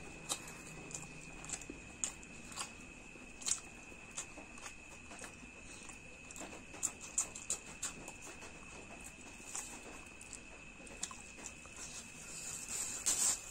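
A person chewing food with irregular wet smacks and clicks of the mouth, over a faint steady high whine.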